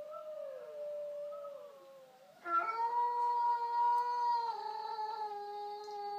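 Howling: short wavering howls, then a long, steady howl starting about two and a half seconds in that dips slightly in pitch partway through and keeps going.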